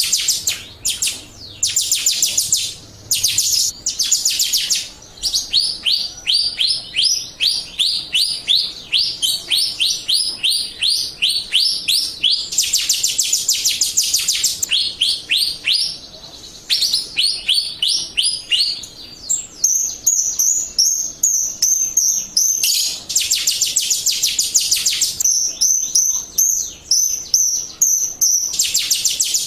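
Jalak Rio bird calling loudly in long rapid runs of sharp high chirps, several notes a second, broken by short pauses. Later, a held high whistle rides over the chirping. This is a 'pancingan' lure call, meant to set other Jalak Rio birds singing.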